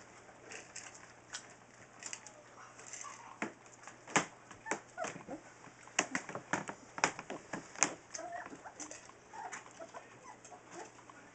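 Newfoundland puppies eating kibble from stainless steel pans: a scatter of sharp clicks and clinks, thickest in the middle, with brief high squeaks and whimpers from the puppies now and then.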